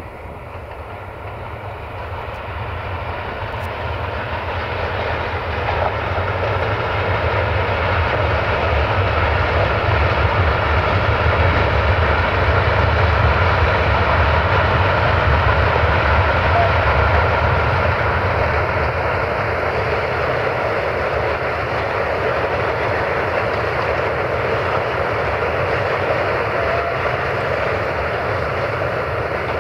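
060-DA (LDE2100) diesel-electric locomotive's Sulzer engine working under load as it hauls a freight train: a steady low rumble with a broad rushing noise above it. It grows steadily louder over the first dozen seconds and then eases off a little.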